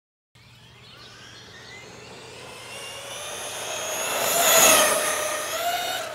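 Traxxas E-Revo electric RC monster truck driving fast, its motor and drivetrain giving a high whine that cuts in just after the start. The whine rises in pitch and loudness as the truck speeds up, peaks about four and a half seconds in, then drops in pitch and fades as it drives off.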